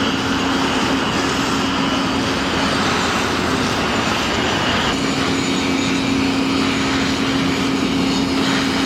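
Steady mechanical roar of vehicles or machinery, with a steady low hum that drops out about three seconds in and returns about five seconds in.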